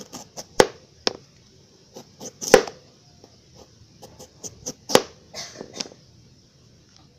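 Kitchen knife dicing a carrot on a cutting board: sharp knocks at irregular intervals, the loudest about half a second, two and a half and five seconds in.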